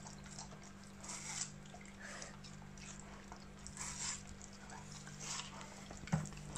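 Siberian husky puppy nibbling and licking the flesh of a watermelon slice: a handful of faint, short wet bites about a second apart, over a steady low hum.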